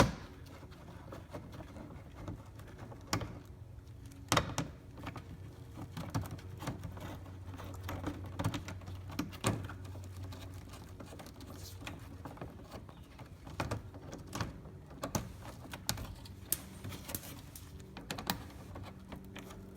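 Irregular clicks and light knocks of an 8mm socket wrench and bolts as a car's plastic undercover is unbolted.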